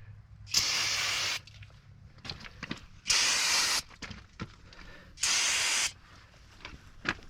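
Three short bursts of pressurised spray hissing, each under a second long, about two to two and a half seconds apart.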